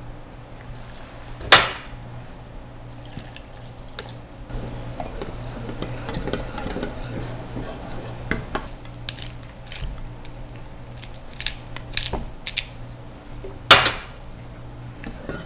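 Water poured from a plastic bottle into a small enamel saucepan, then a wire whisk stirring rice-flour batter in the pan, a busy scratchy clicking. Two sharp clinks of kitchenware stand out, about a second and a half in and near the end.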